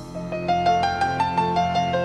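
Background music: a piano melody of distinct notes over a held low chord.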